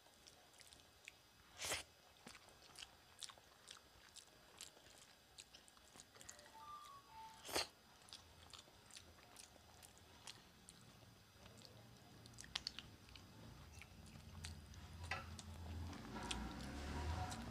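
Close-miked eating sounds of someone eating rice and curry by hand: chewing with many scattered sharp clicks and mouth smacks. There are two louder clicks, about two seconds in and again around seven and a half seconds, and the chewing grows louder and heavier over the last few seconds.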